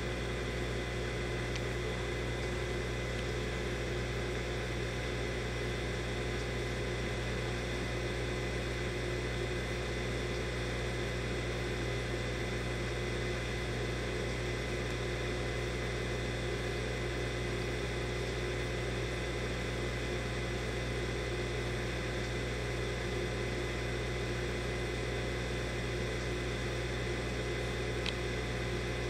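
Steady hum and hiss of reef aquarium pumps running, with a few fixed tones and no change in level. A faint click sounds near the end.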